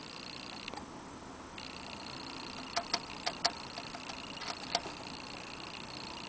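Hamster licking at the metal sipper tube of a water bottle: a cluster of about eight sharp little ticks over two seconds, starting a little before the middle, as the ball in the spout clicks.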